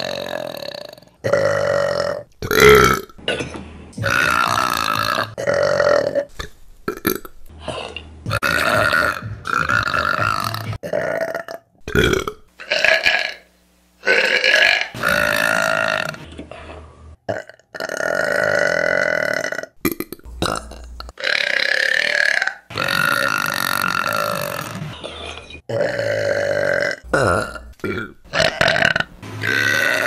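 A woman burping over and over: more than a dozen burps, some short and some long and drawn out, with brief pauses between them. The loudest comes about three seconds in.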